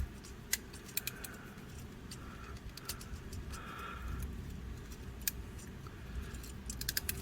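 Hard toy parts of a Mech Fans Toys MS28 Thunderbolt transforming figure clicking and tapping as they are handled and pulled, with a quick run of clicks near the end.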